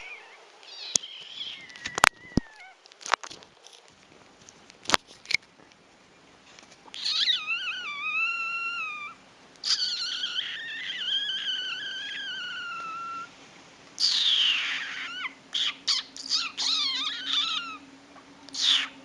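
A pet animal making high, wavering cries: several drawn-out calls of one to three seconds each, the pitch sliding up and down, with a few sharp clicks in the first few seconds.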